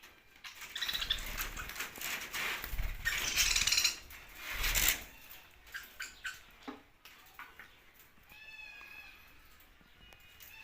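Budgerigars flapping their wings for several seconds, followed by a few sharp taps and a short chirp.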